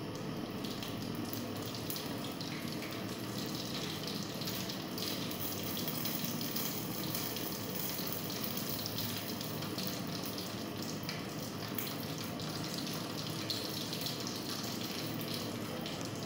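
Hose-fed gas blowtorch burning steadily: a continuous rushing hiss with a faint crackle.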